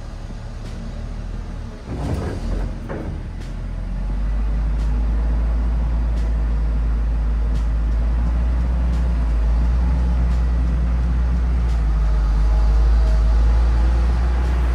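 Tracked excavator's diesel engine running, coming up onto load about four seconds in and staying loud as the boom lifts and swings.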